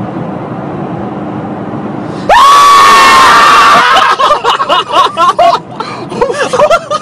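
Steady car cabin road noise, then a sudden loud scream about two seconds in, held for over a second, followed by men laughing in bursts.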